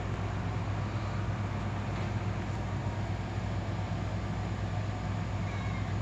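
Steady low hum with an even hiss that runs unchanged, with no distinct events.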